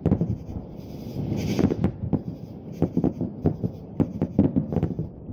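Aerial fireworks shells bursting overhead in a quick, irregular run of about a dozen deep booms, several overlapping.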